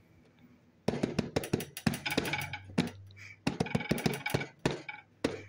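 Fingers drumming in quick, irregular taps on the plastic lid of a glass food-storage container as a makeshift drum roll, starting about a second in.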